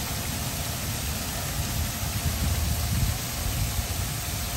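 Pond fountain aerator spraying water that falls back onto the pond surface: a steady rushing splash, with a low, uneven rumble underneath.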